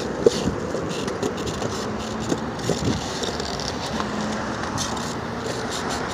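Steady rolling rumble of a child's kick scooter's small wheels on a concrete sidewalk, with scattered clicks, over road traffic from the street nearby.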